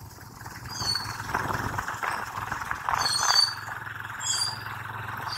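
Yamaha FZ25 motorcycle's single-cylinder engine running steadily while riding, with wind and road noise. A few short, high bird chirps sound over it about a second in, around three seconds and again a little later.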